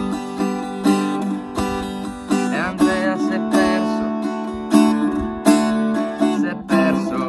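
Small travel acoustic guitar played with a rhythmic run of strummed chords, a fresh stroke every second or so, with a couple of quick sliding notes in between.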